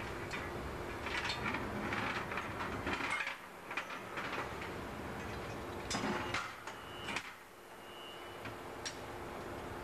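Metal clanks and knocks over a steady machinery hum, with a brief thin high tone after the middle: metal tools and parts being handled during work on a large marine two-stroke engine.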